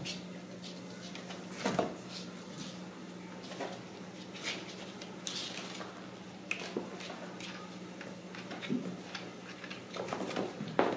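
Ragdoll kittens playing on cardboard scratchers and a tile floor: scattered scrapes, clicks and light knocks from claws and paws, with a louder knock about two seconds in and another near the end, over a steady low hum.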